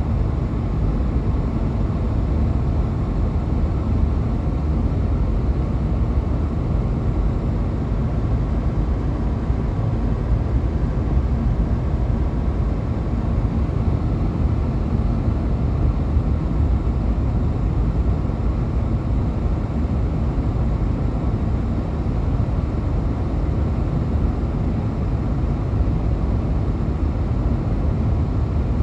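A car driving: a steady low rumble of engine and tyre noise with a faint steady hum.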